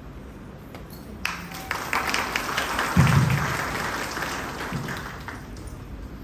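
Audience clapping, starting about a second in, swelling, then dying away near the end. A single low thump comes about three seconds in and is the loudest sound.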